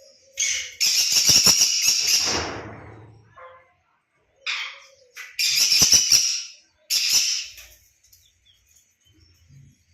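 A pet conure screeching: about six loud, harsh calls in bursts, the longest lasting about two seconds, with short gaps between them.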